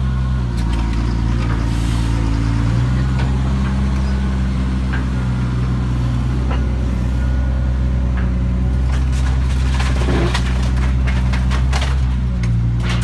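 Excavator's diesel engine running steadily, its pitch shifting a little as the hydraulics are worked from the controls. Near the end comes a cluster of sharp knocks and cracks.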